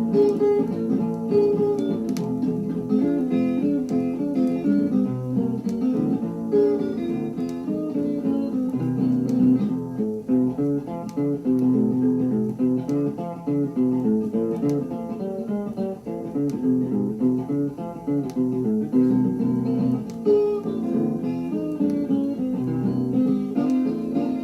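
Blues guitar playing an instrumental passage: picked notes over a repeating bass line, with no singing.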